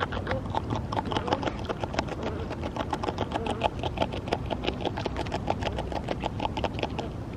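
North American beaver chewing green leaves at close range: rapid wet crunching, several bites a second, which stops shortly before the end. A low steady rumble runs beneath it.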